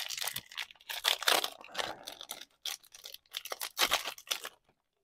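Foil wrapper of a baseball card pack being torn open and crinkled by hand: irregular crackling and tearing that stops near the end.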